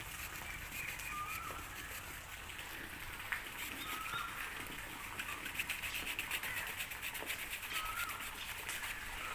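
The small wood-saw blade of a Victorinox Huntsman Swiss Army knife sawing through a hard, thick branch with a fine, rapid crackle, more distinct from about three seconds in. A bird repeats a short chirp every two to three seconds.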